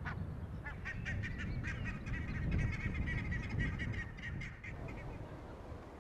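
Water birds calling in a quick run of short, overlapping calls that thin out and stop about five seconds in, over a steady low rumble.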